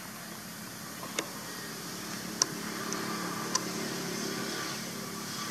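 Plastic snack packet crackling as a long-tailed macaque bites and pulls at it: three sharp crackles about a second apart over a steady low background hum.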